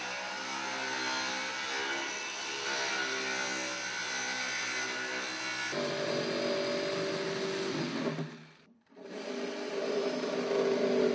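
Corded circular saw running and cutting through a blue BlueDuct linear diffuser adapter with a steady whine; about six seconds in it gives way to a reciprocating saw (Sawzall) cutting the same piece, which stops briefly near the nine-second mark and starts again.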